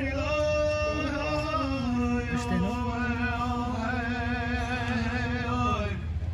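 A man singing a powwow honor song in long held notes, his pitch wavering on the last note before he breaks off about six seconds in.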